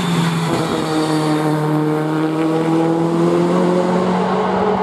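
Rally car engine at full throttle, driving past on a hill-climb course: the engine note dips briefly about half a second in, then climbs steadily as the car accelerates.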